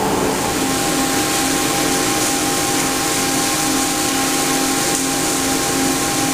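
Hwacheon VT 4500 vertical turning lathe cutting a large SM490A steel ring under a heavy 18 mm-deep cut at 1.2 mm/rev feed: a steady hiss of cutting noise with a faint steady whine, even throughout.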